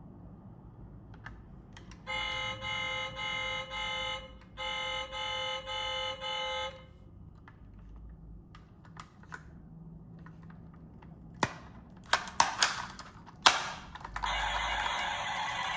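An electronic beeper sounds two runs of four short, even beeps. Sharp clicks and taps follow, and a rustling noise comes in near the end.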